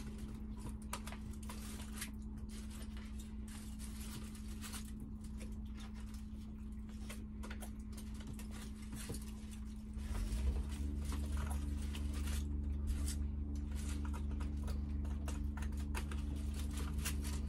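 Quiet eating at a table: scattered small clicks and crinkles of fingers, naan and food in foil takeaway trays, over a steady low hum. About ten seconds in, a deeper steady hum joins and the sound gets a little louder.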